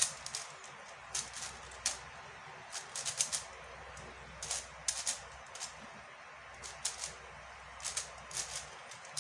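MoFang JiaoShi MF5S 5x5 plastic speed cube being turned by hand: short runs of quick clicks and clacks as the layers snap round, with brief pauses between runs. The cube has not yet been lubricated.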